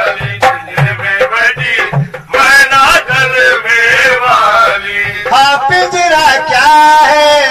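Sufi devotional kalam music: a melodic line bending up and down over a steady rhythm of drum beats, between sung verses.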